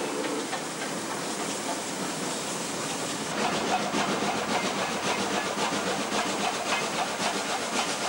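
Steam-hauled trains running at speed, heard from a carriage window: a steady rush of running noise and hiss. From about three seconds in, a fast, regular clatter of wheels on rail joins it.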